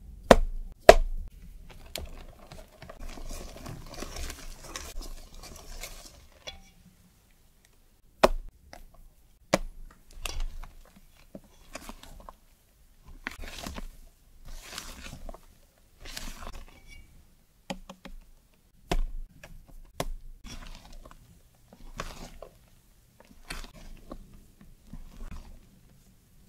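A silicone spatula folding meringue into egg-yolk cake batter in a stainless steel bowl: soft swishing, scraping strokes against the metal, about one every second and a half, with a few sharp knocks, the loudest near the start.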